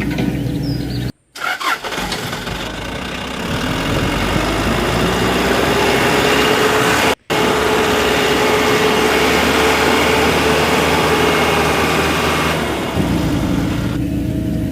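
A vehicle engine running: it revs up, rising in pitch, then holds a steady run, broken by two brief dropouts in the sound.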